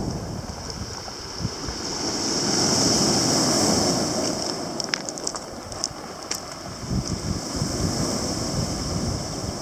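Sea waves washing ashore, swelling loudest about three seconds in, with wind buffeting the microphone.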